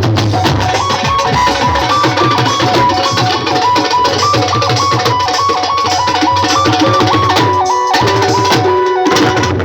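Music with drum percussion under a high melody that steps between fixed notes. The low drums drop out briefly about eight seconds in.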